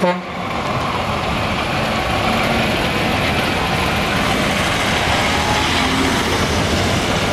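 Diesel engine of a DAF XF tractor unit pulling away and driving close past, swelling to its loudest as the cab goes by, with tyre and road noise. A short sharp sound at the very start.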